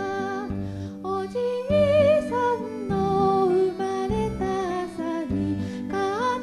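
Gentle background music: a melody of held notes over a repeating bass pattern.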